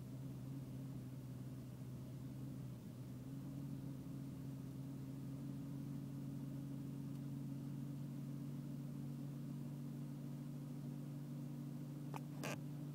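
BMW engine idling with a steady low hum that shifts slightly about three seconds in. Two sharp clicks near the end.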